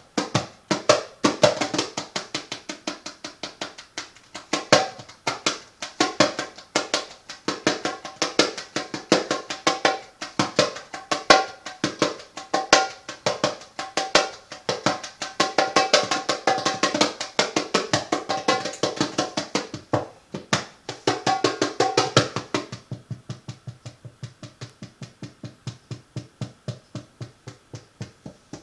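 Hand drum played with quick, dense strokes. About three-quarters of the way through, the playing drops to a quieter, steady beat.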